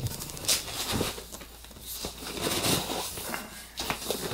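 Cardboard packaging being rustled and scraped while contents are pulled from a box, with a few light knocks.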